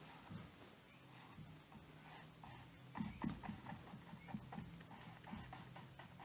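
A small paintbrush dabbing and scrubbing acrylic paint onto a stretched canvas: a run of soft, quick taps that get busier about three seconds in, faint over a low steady hum.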